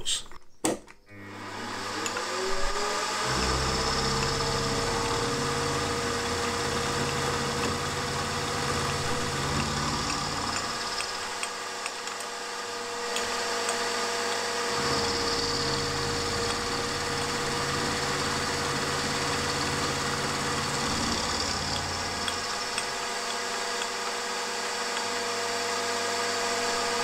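Milling machine spindle spinning up with a rising whine a second or two in, then running steadily while an end mill takes 25 thou cuts in an aluminium block. A lower rumble comes and goes in two long stretches, with quieter gaps between them.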